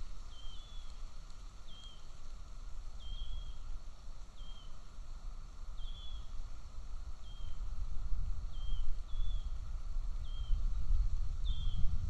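Golden eagle chick giving thin, high food-begging calls, a short drooping chirp about once a second. A low wind rumble on the microphone grows louder near the end.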